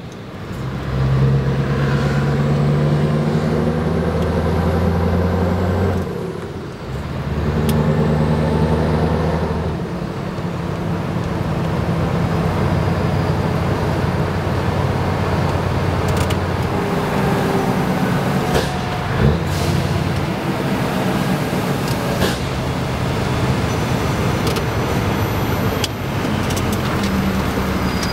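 Scania R 500's V8 diesel engine with open high exhaust pipes pulling the truck away, heard from inside the cab. It pulls hard, drops briefly for a gear change about six seconds in, pulls again, then settles into a steadier cruise after about ten seconds.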